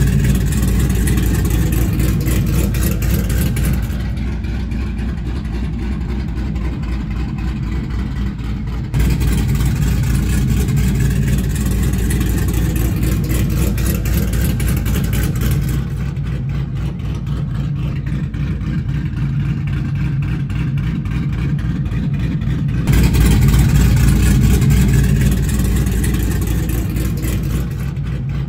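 Car engine running steadily, its sound mostly low-pitched, in edited sections whose loudness changes abruptly about four, nine, sixteen and twenty-three seconds in.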